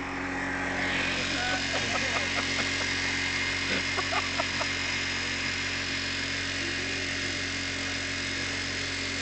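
Electric beard trimmer running with a steady buzz as it cuts through a full beard. Faint voices in the background.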